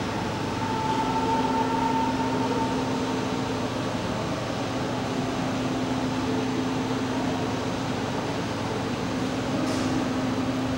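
A steady mechanical hum with a low held tone throughout and a higher tone that sounds for about two seconds near the start.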